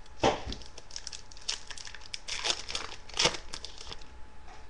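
Hockey card pack wrapper crinkling and cards being handled, in several short crackly bursts.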